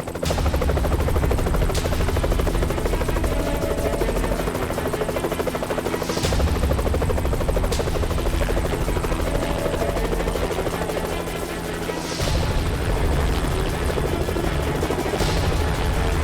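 Helicopter rotor chopping steadily with a heavy low rumble, under a dramatic music score. A few brief swishes are heard along the way.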